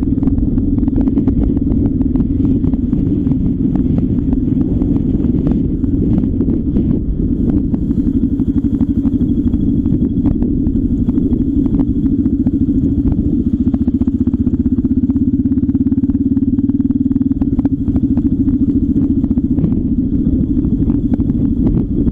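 A vehicle's engine running steadily at cruising pace, with a constant low hum, road rumble, and many small clicks and knocks from the road surface.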